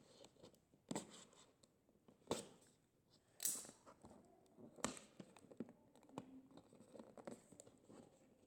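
A tape-sealed cardboard box being worked open by hand: scattered sharp knocks and scrapes, with a short tearing sound about three and a half seconds in.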